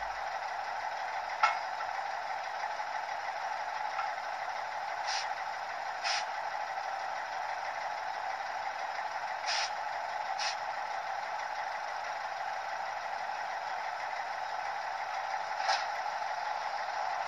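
Sound-equipped model of a PKP SU46 diesel locomotive playing its diesel engine idling sound through the model's small speaker, a steady hum. A sharp click comes about a second and a half in, and a few short hisses follow over the next fifteen seconds.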